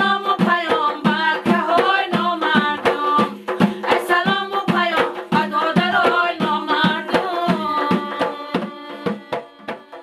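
A woman singing a Tajik folk song in a wavering, ornamented voice over hand-struck frame drums beating a steady rhythm of about three strokes a second. The song fades away over the last couple of seconds.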